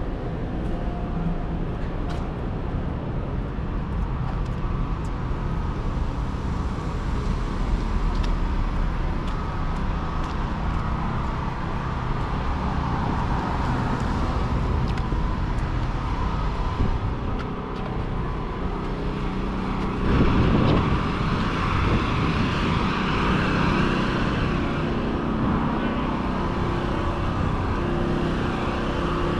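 City street traffic: cars running past with a steady low rumble, and a louder vehicle passing close about two-thirds of the way through.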